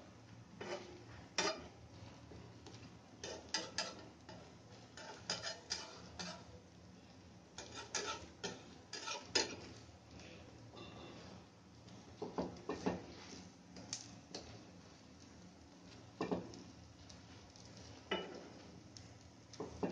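A spatula tapping, pressing and scraping against a non-stick frying pan as slices of bread are pushed down into setting egg. It comes as irregular clusters of sharp clicks and knocks, busiest a few seconds in and again around the middle.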